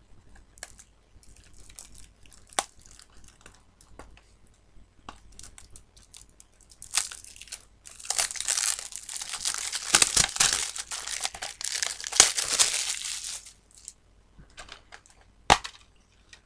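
Plastic wrapping being torn and crinkled off a Blu-ray case by hand, with scattered taps and clicks of the plastic case. The crinkling and tearing gets dense and loud for about five seconds in the middle. A single sharp click comes near the end as the case is opened.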